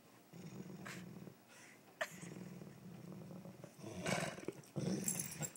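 Big dog growling low in three long rumbling stretches, the last the loudest, with a short sharp squeak about two seconds in.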